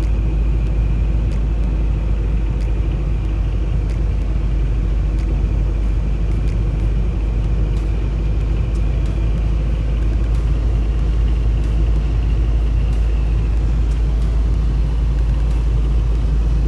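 Motor vehicle driving: a steady, loud low rumble of engine and road noise.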